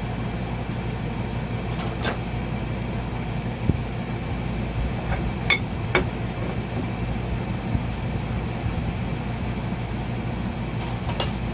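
Steady low background hum with a few sharp metal clicks and taps from hydraulic bead breaker parts being handled and fitted, including a quick cluster of clicks near the end.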